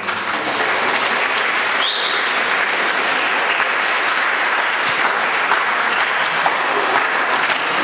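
Large crowd of students and parents applauding steadily.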